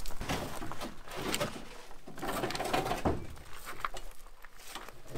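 Irregular rustling, scraping and a few light knocks from handling a rusted seat spring frame and working inside a stripped car interior.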